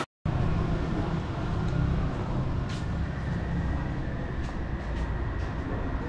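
Steady low rumble of urban outdoor background noise, with a few faint clicks scattered through it.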